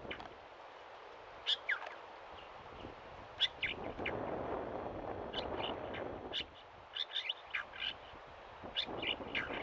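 Hood mockingbird (Española mockingbird) giving short, sharp, high calls in small quick clusters, repeated several times, over a faint background rush.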